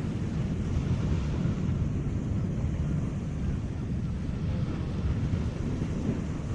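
Wind rumbling and buffeting on the microphone, steady throughout, over the wash of the sea.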